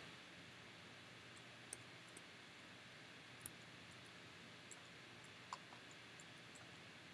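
Near silence broken by a handful of faint, scattered computer mouse clicks.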